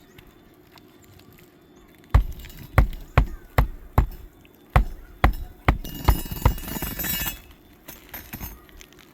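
Hammer driving roofing nails into an asphalt shingle: about ten sharp blows in quick, uneven succession over four seconds, then a short rustle.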